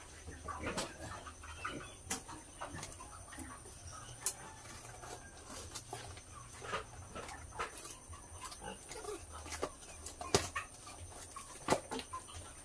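Broiler chickens clucking, with scattered light clicks and knocks through it.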